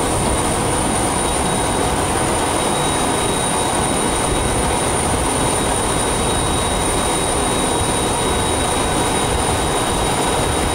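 Jet aircraft running on the ramp: a loud, even roar with a thin, steady high-pitched whine on top.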